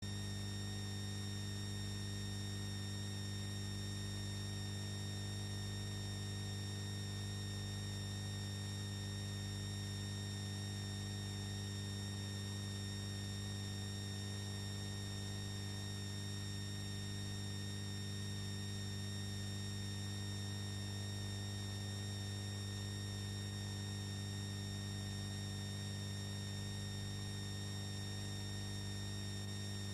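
Steady electrical mains hum with hiss and a faint high-pitched whine, unchanging.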